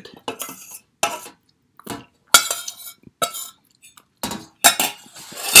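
Metal spoon scraping and clinking against a nearly empty stainless steel saucepan, in a string of short, sharp scrapes as the last of the sauce is scooped out.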